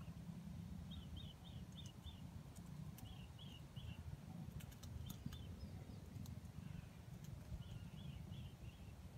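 Faint bird chirping: quick runs of three to five short high notes, repeated every couple of seconds, over a steady low outdoor rumble with a few sharp ticks.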